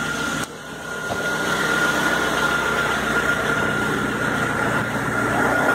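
Citroën Xsara Picasso engine idling steadily, getting louder from about a second in, with a steady high whine alongside it.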